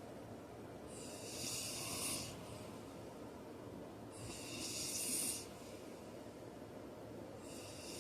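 Man snoring in his sleep, with hissing breaths about three seconds apart: two full ones, and a third starting near the end.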